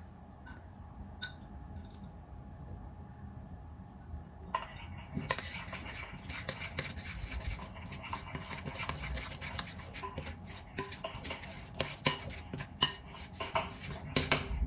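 Metal spoon stirring a thick cake-style batter of creamed butter, sugar, egg and flour in a large mixing bowl, scraping and clinking against the bowl's sides. It is faint for the first few seconds, then becomes a busy run of scrapes and taps.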